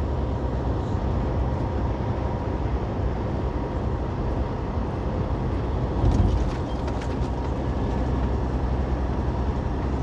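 Steady engine and road drone inside a truck cab while driving on the highway, with a brief louder rumble about six seconds in.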